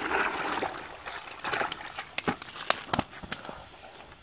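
Dry leaves and twigs rustling and crackling as someone moves through dry brush. Several sharp snaps come in the second half.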